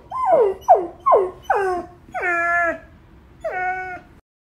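A pet animal crying over and over: a run of short cries, each falling in pitch, then two longer, steadier cries.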